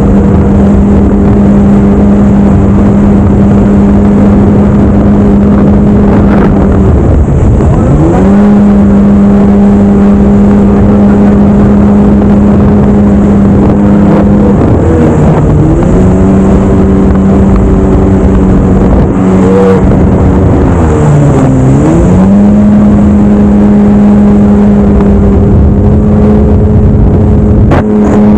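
Jet ski engine running at high speed over a steady rush of noise. Its pitch drops and climbs back three times, a little after a quarter of the way in, about halfway, and about three-quarters of the way through.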